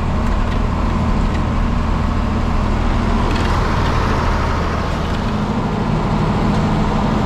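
Tractor engine running steadily, heard from inside the cab while the tractor drives across the pasture; the engine note shifts about five seconds in.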